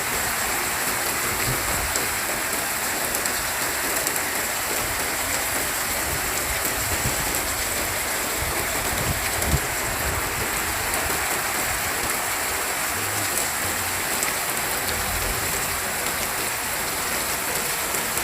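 Heavy rain pouring down steadily in strong wind, with irregular low thumps underneath.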